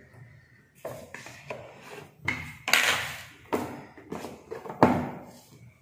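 Cardboard and paper packaging handled on a table: rustling with a series of sharp knocks and taps as the small box is moved and set down, the sharpest near the end.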